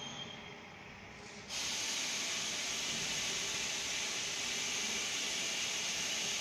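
A steady hiss, like air or steam escaping, starts suddenly about a second and a half in and keeps on without a break, over quieter workshop background noise.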